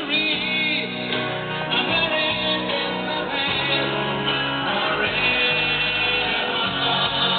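Music: a song with singing.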